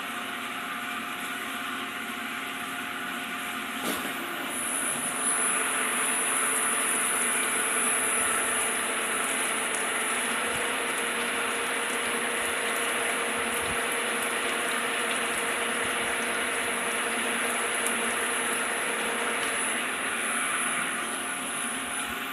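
Hamai 60SP CNC gear hobbing machine running: a steady machine noise that grows louder about five seconds in, with a thin high whine over it and a lower steady hum through the middle, easing near the end.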